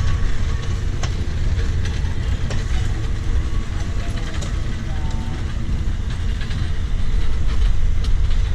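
Diesel locomotive engine running with a steady low rumble, a few faint knocks over it, and growing a little louder near the end.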